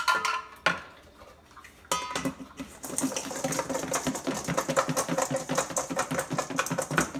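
A few clinks of dishes against a stainless steel mixing bowl, then, from about three seconds in, a fast continuous rattle: deep-fried chicken wings shaken in butter and wing sauce inside the bowl, covered with a plate, to coat them.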